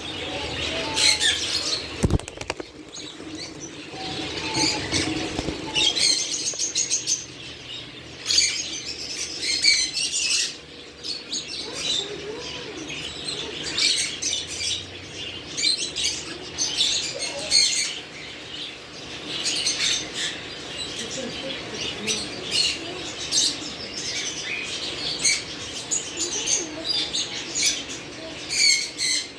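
Pet green parrot making repeated short, high chirps and squeaks while fluttering its wings, with a sharp knock about two seconds in.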